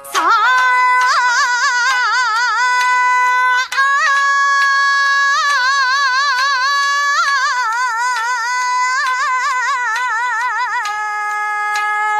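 A woman singing long, held "saa" and "ah" notes with wide vibrato. She pauses briefly for breath about four seconds in and steps down to a lower note near the end.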